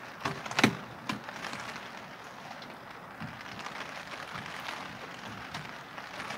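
Steady rain falling, with close drops tapping on a surface; one louder tap comes under a second in.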